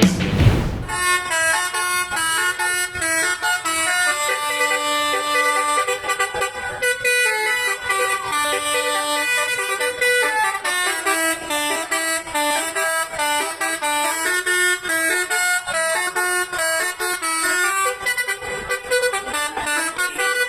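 A bus's telolet horn, a bank of tuned air horns, playing a tune of short notes that step from pitch to pitch.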